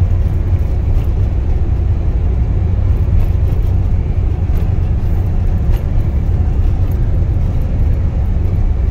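Steady low rumble of a Nissan NV350 van driving along a road, heard from inside the cabin: engine and tyre noise with no distinct events.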